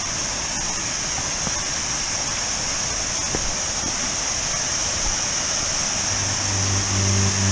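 Small waterfall rushing, a steady hiss of falling water. Music comes in about six seconds in.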